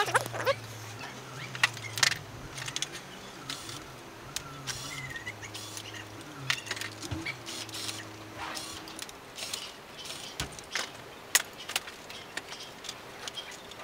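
Irregular clicks and knocks of a printer power board and its heat sinks being handled and set down on a wooden desk while it is taken apart for scrap. Under them is a low steady hum that stops a little over halfway through.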